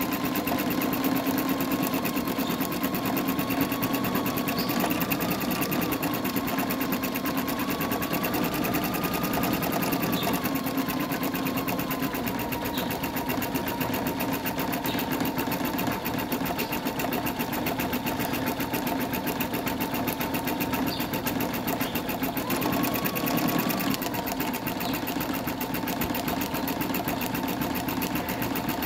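Embroidery machine stitching into terry towelling. The needle runs in a fast, steady rhythm, and the motor whine shifts up slightly in pitch a few times.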